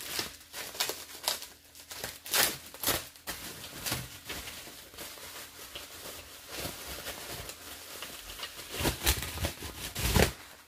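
Plastic bubble wrap crinkling and rustling as it is handled and pulled off small gel polish bottles, in irregular crackles, loudest about two to three seconds in and again near the end.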